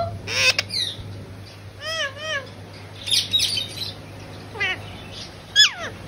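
Caged parrots calling: short sharp chirps and squawks. There are two arched chirps about two seconds in, a harsh burst around three seconds, and quick falling calls near the end.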